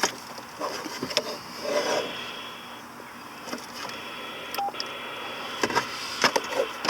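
CB radio being switched to another channel: clicks from the controls, with a short electronic beep and two steady high tones about a second long each.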